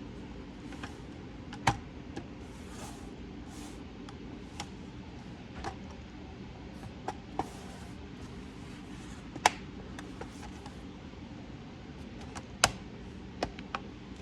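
Scattered sharp plastic clicks and snaps as a laptop's case panel is pressed back into place, with faint handling rustle; three clicks, about a second and a half in, near the middle and near the end, stand out louder than the rest.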